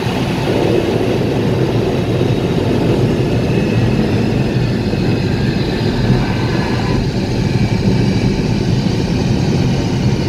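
Ford Focus RS driving at a steady pace, heard from inside the cabin: a constant mix of engine, tyre and road noise.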